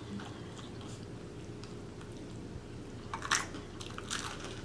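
A person chewing food close to the microphone, mostly quiet, with two short louder mouth noises about three and four seconds in.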